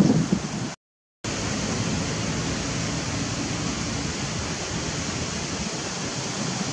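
Steady, even hiss of outdoor background noise. A low rumble of wind on the microphone fades away at the start, the sound drops out completely for about half a second at an edit, and the hiss then carries on unchanged.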